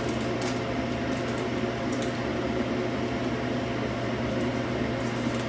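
Steady low mechanical hum of kitchen machinery, with a few faint light clicks near the start and about two seconds in.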